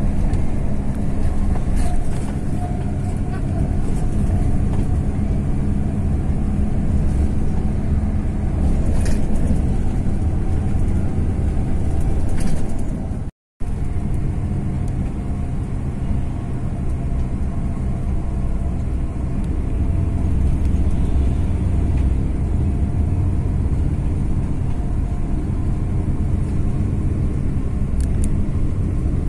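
Steady engine drone and road noise of a Hino-chassis express coach bus on the move, with a brief dropout to silence about thirteen seconds in.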